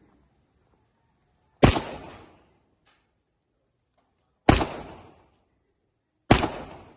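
Three single shots from a Glock 21 Gen4 .45 ACP pistol, fired slowly and unevenly spaced, each sharp crack followed by a short echoing tail.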